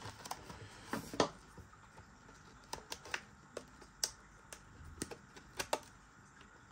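Package of live mealworms being opened and handled: scattered light clicks and taps, with a couple of louder ones about a second in and sparser ticks after.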